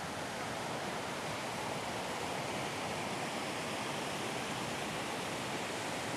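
Swollen, muddy floodwater rushing steadily down a concrete-lined river canal after heavy rain, a continuous even wash of turbulent water.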